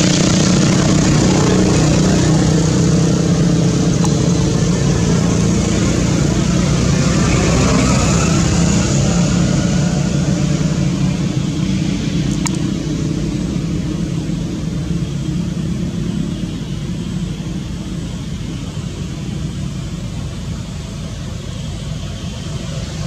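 A motor vehicle engine running steadily. It gradually gets quieter in the second half.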